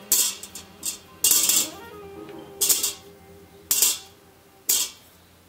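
Fingerling potatoes pushed off a tray by hand into a steel Instant Pot inner pot, landing on a wire trivet: about five short rattling tumbles roughly a second apart. Background music plays faintly underneath.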